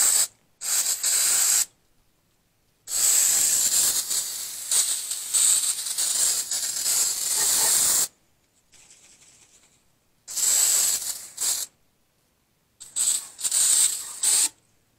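Hand-pump pressure sprayer spraying degreaser onto an engine cylinder head in hissing bursts. There are two short squirts, then one long spray of about five seconds, then a few shorter squirts.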